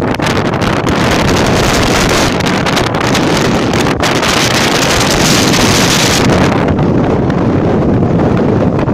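Strong wind buffeting the microphone: a loud, continuous rumbling noise with no pitch. The upper hiss drops away after about six seconds while the low rumble goes on.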